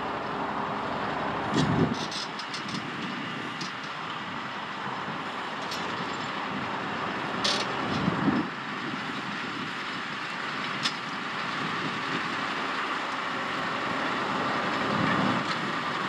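John Deere 7R 330 tractor's six-cylinder diesel engine running steadily under load while pulling a plough through the soil. A few short sharp clicks and brief low swells sound over it.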